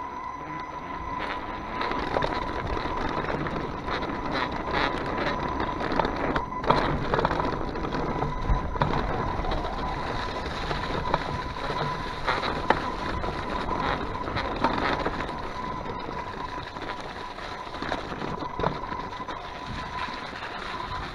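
Kona mountain bike ridden fast over a rough dirt trail dusted with snow and leaves: continuous tyre rumble, with the bike clattering and knocking over bumps, getting louder about two seconds in.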